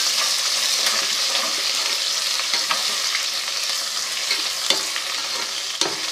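Onions frying in hot ghee in a pot, sizzling steadily, while a spoon stirs them, with a few sharp clicks of the spoon against the pot.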